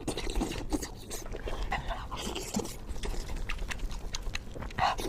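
Close-miked eating sounds of a person chewing spicy pork: an irregular run of short wet smacks and clicks of the mouth.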